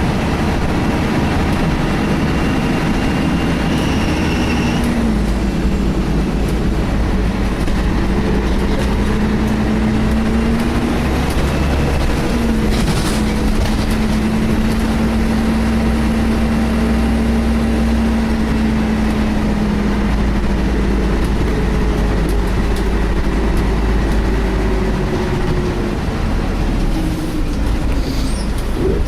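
Scania L113 bus's six-cylinder diesel engine running under way, heard from inside the saloon, its note stepping to a new pitch about five seconds in and again about twelve seconds in as the bus changes gear. A faint high whine rises over the first five seconds and then stops.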